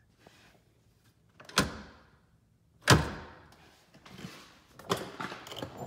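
Spring-loaded M.O.R.E. Hide-A-Step folding step clanking on its bracket as it is worked: two sharp metal clanks about a second and a half apart, the second the louder, then a few lighter clicks near the end as it tucks back up against itself.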